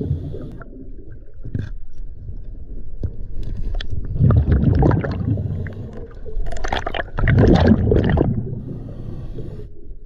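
Scuba diver's exhaled regulator bubbles gurgling, heard underwater, in two long bursts about halfway through, over a steady low underwater rumble.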